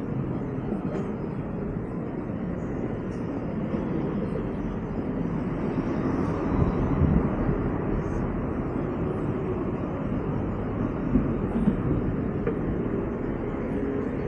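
Steady low vehicle rumble with no sharp sounds.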